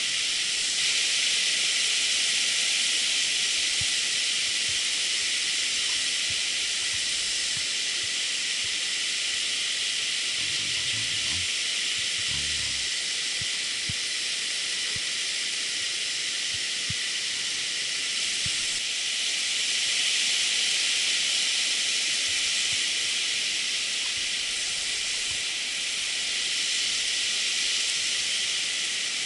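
River water rushing over a small weir and rapids, a steady hiss. A few soft knocks come about ten to thirteen seconds in.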